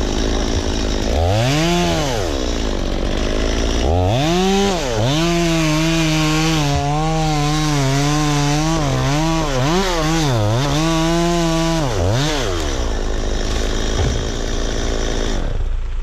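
Chainsaw revving and cutting into dry cedar wood. The engine races up about a second in and falls back, then from about four seconds holds at high revs with its pitch dipping and wavering as the chain bogs under load. Near the end it drops back to idle and the loud sound falls away.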